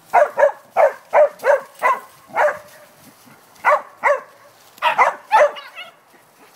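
Corgi barking repeatedly at the fence, about a dozen short, sharp, high barks in three quick runs with brief pauses between them.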